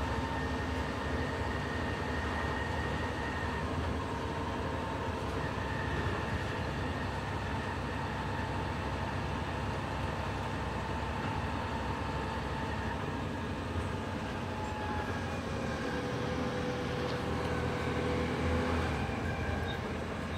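Volvo B7TL double-decker bus under way, heard from inside the passenger saloon: its diesel engine and drivetrain run with a steady drone and a few held tones over road noise.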